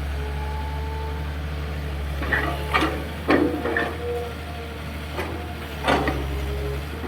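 Hitachi EX220-3 LC long-boom excavator's diesel engine running steadily, with a series of sharp knocks and clanks from about two seconds in, five or six in all.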